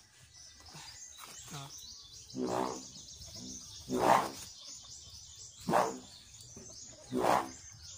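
Homemade kite hummer, a buli-leaf reed on a bent bamboo bow, buzzing in four short bursts about a second and a half apart, over birds chirping.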